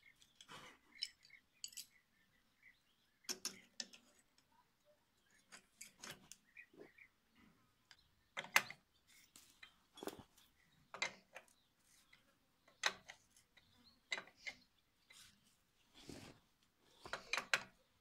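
Scattered metallic clinks and scrapes of a steel tool against a sickle-bar mower's cutter bar and knife sections, irregular, a sharp knock every second or so.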